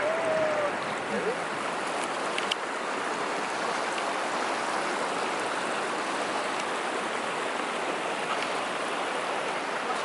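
River water rushing steadily over rock ledges and rapids.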